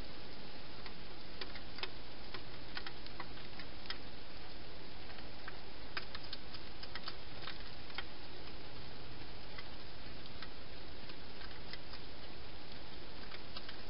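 Irregular sharp clicks in small clusters, the crunching of a wild hedgehog chewing dry food, over a steady background hiss.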